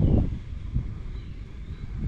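Wind buffeting the microphone: an uneven low rumble with a stronger gust right at the start.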